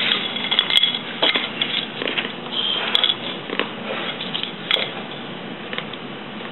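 Homemade fortune cookies being cracked and crumbled by hand over plates: an irregular run of short crisp snaps and crackles, with light knocks of dishes.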